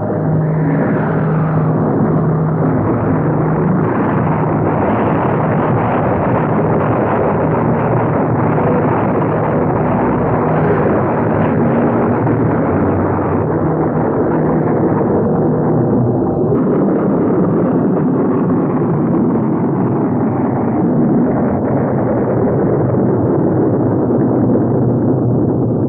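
Loud, steady rumbling roar with low droning tones underneath: a film sound effect for a huge spacecraft slowing as it descends.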